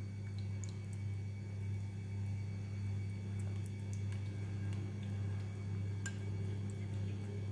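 A spoon stirring a soft gel-and-oil mixture in a small glass bowl, with faint scattered clicks where it touches the glass, over a steady low hum.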